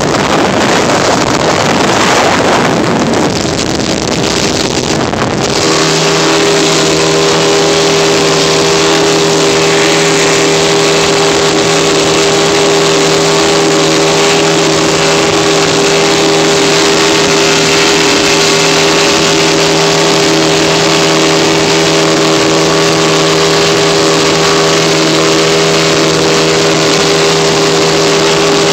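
Fishing boat under way at cruising speed: a dense rush of wind and water for the first five seconds or so, then the boat's engine running in a steady drone over the rushing water.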